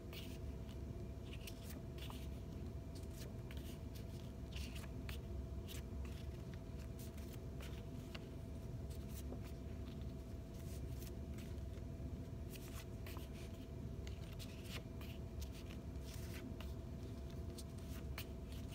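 A stack of card flashcards being handled and flipped over one at a time: scattered soft rustles and light taps over a steady low room hum.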